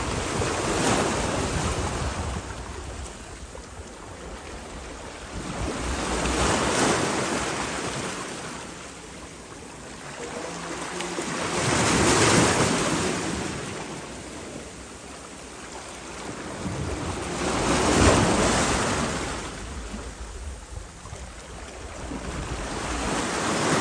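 Sea waves washing onto the shore, the surf swelling and fading about every six seconds. Wind rumbles on the microphone in the first few seconds.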